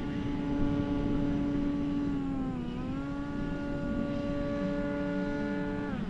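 Electric motor and propeller of an FMS 2000mm DeHavilland Beaver RC plane in flight, giving a steady whine that dips briefly in pitch about halfway through and then recovers, over a low wind rumble. The sound cuts off abruptly at the very end.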